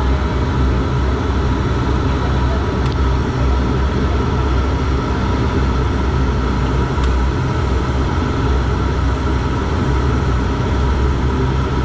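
Turboprop airliner engine with a six-bladed propeller running at low power on the ground, heard from inside the cabin as a steady low drone with an even hum.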